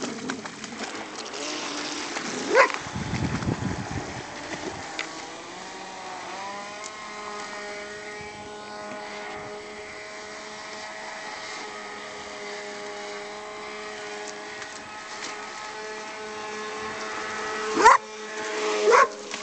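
Water splashes as a black Labrador wades at first. Then a Traxxas Blast RC boat's electric motor runs with a steady whine, rising in pitch as it speeds up about six seconds in and then holding. Near the end the dog gives a sharp, rising yelp.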